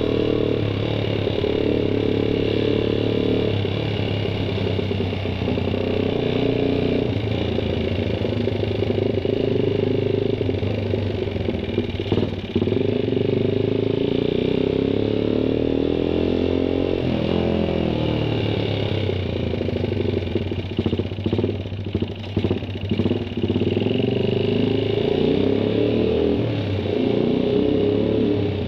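Suzuki Satria FU 150's carburetted single-cylinder four-stroke engine running under way, its revs rising and falling with the throttle. About two-thirds of the way through the note falls away and runs choppy and uneven for a few seconds before steadying again.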